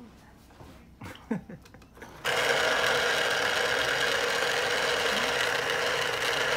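Electric citrus juicer's motor starts suddenly about two seconds in and runs steadily, spinning the reamer cone as an orange half is pressed down on it.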